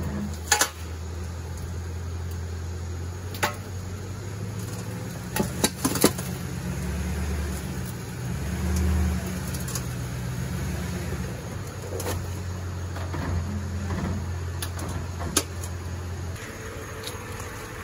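A Toyota Tundra's 5.7-litre V8 idling and pulling the truck slowly up a pair of steel drive-on ramps, with a few sharp knocks along the way. The engine swells briefly midway and drops away about sixteen seconds in.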